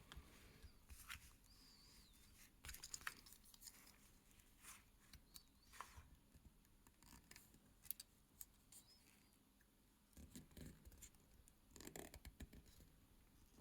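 Near silence with faint, scattered clicks and scratches: small tools and tiny metal parts of a mechanical watch movement being handled as it is taken apart.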